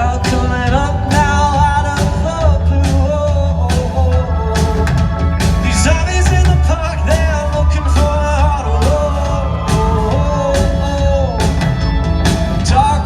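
Male singer and rock band performing live, the voice singing a held, sliding melody over a steady beat, recorded from the audience.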